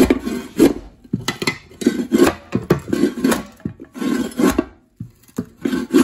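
Flat-nose shovel blade scraping hard along a wooden subfloor, prying up carpet tack strip and staples: rough scrapes with sharp knocks and clicks, roughly one stroke a second.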